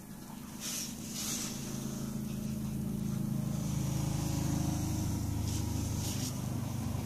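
Bath bomb fizzing in bathwater with a faint hiss and crackle, under a louder low mechanical hum that swells over the first few seconds and stops suddenly near the end.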